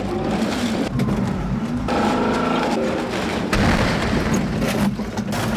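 Tracked armoured vehicle's engine running hard as it drives into a house, with repeated knocks and crashes of breaking walls and falling debris. The loudest crashing comes from about three and a half seconds in.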